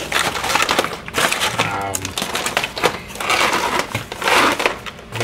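Foil freeze-dried food pouches crinkling and rustling as they are grabbed and shuffled around on a table, in two spells, the second starting about three seconds in.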